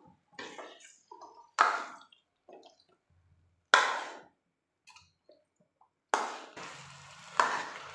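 Metal ladle clinking and scraping against an aluminium kadhai as boiled chickpeas are stirred into masala: three separate clinks in the first four seconds, then steady stirring and scraping from about six seconds in.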